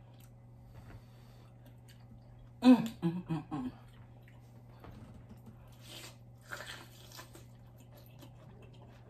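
Someone eating a fried birria egg roll dipped in consommé: soft chewing and biting sounds, with a short voiced "mm" about three seconds in.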